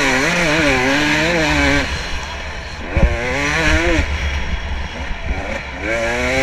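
Dirt bike engine heard from the rider's GoPro, revving up and falling back in several surges as the throttle is opened and closed. There is a sharp knock about three seconds in.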